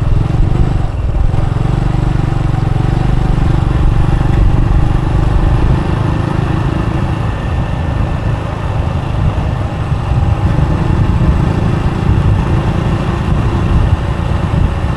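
Motorbike riding at road speed: a steady engine drone under a heavy low rumble of wind and road noise.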